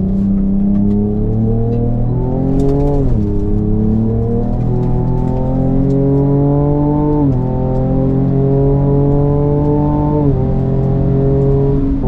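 Ford Ranger Raptor's twin-turbo V6 pulling hard under acceleration, its pitch climbing steadily in each gear and dropping sharply at each upshift: about three, seven and ten seconds in, and again at the very end.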